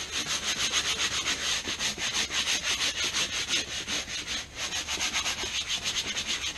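Hard-bristle scrub brush scrubbing a wet vinyl boat seat cushion in rapid, even back-and-forth strokes, with a brief pause about four and a half seconds in.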